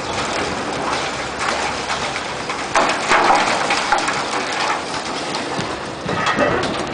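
Concrete and rubble crumbling and falling as a high-reach demolition excavator breaks down a concrete malting tower: a continuous hiss of falling debris that swells about three seconds in and again near the end.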